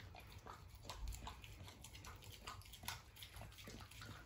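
A dog licking and lapping food out of a rubber West Paw Toppl treat toy: faint, irregular wet licks and smacks, several a second.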